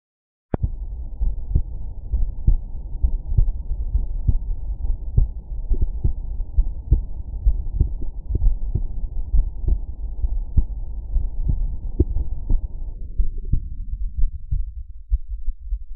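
Heartbeat heard through a stethoscope at Erb's point: steady, evenly paced lub-dub beats at a little over one a second, starting with a click. Near the end the sound turns duller as its upper range is filtered away.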